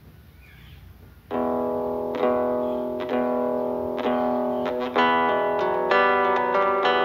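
Acoustic guitar music: faint background noise, then about a second in a solo guitar starts playing, with plucked chords struck about once a second and busier picking toward the end.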